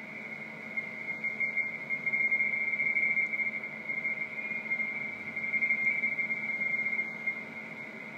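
Radioteletype (RTTY) signal on the 17 m amateur band, coming from a receiver's speaker: a two-tone data warble near 2 kHz over steady radio hiss. It swells louder about a second in and drops back near the end.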